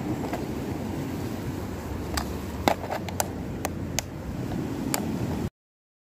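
Sharp plastic clicks and knocks from clear tackle boxes with snap latches being handled and pressed shut, over a steady low outdoor rumble. The sound cuts off to silence near the end.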